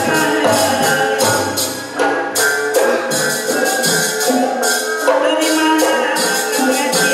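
Sundanese gamelan ensemble playing dance accompaniment: struck metallophones carry a melody over a regular bright metallic jingle on the beat.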